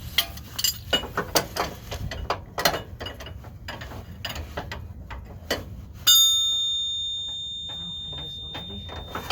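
Wrench and tool work on a car's outer tie rod end: a run of irregular metal clicks and knocks, then about six seconds in a sharp metal clang that rings on, fading over about three seconds.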